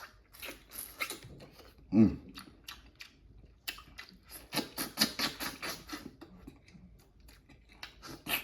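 Close-miked chewing and wet mouth sounds of a person eating, with a short loud low hum about two seconds in and a busier stretch of chewing in the middle.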